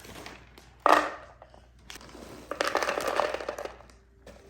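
Popcorn and its bag being handled: crinkling and crunching, with a sudden short knock about a second in and a longer spell of rustling in the middle.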